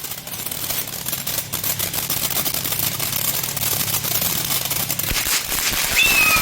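Ground fountain firework spraying, with a steady hiss and dense rapid crackling. A high whistling tone that slides down in pitch starts near the end.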